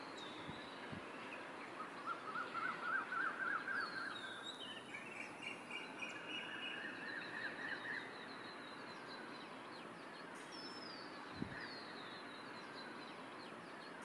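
Several wild birds calling over a faint steady outdoor hiss. A quick run of repeated notes comes about two seconds in, followed by thinner high chirps and short falling whistles.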